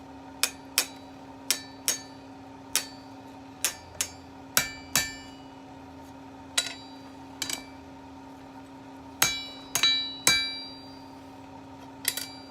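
Blacksmith's hand hammer striking steel on an anvil, about fifteen irregular blows, some in quick pairs, each with a short bright ring, as the split ends of a bar are worked open. A steady hum runs underneath.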